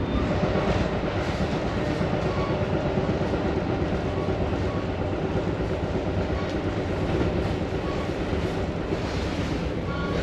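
Steady rumble and rattle of a Metra bilevel gallery commuter car rolling along the track at speed, heard from inside on the upper deck.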